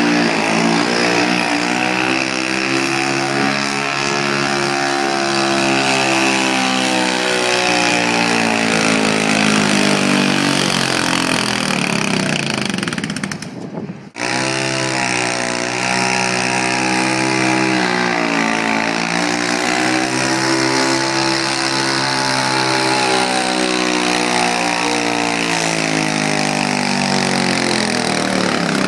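Super stock garden tractor engines running at high revs while pulling a weight-transfer sled, the pitch sagging and picking up again several times as the load comes on. About halfway through the sound cuts out briefly and a second tractor's engine starts up straight away.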